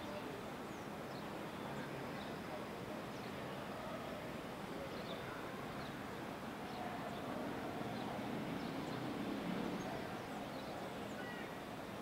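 Scattered short, high chirps from a flock of small birds in flight, over a steady background murmur of town noise.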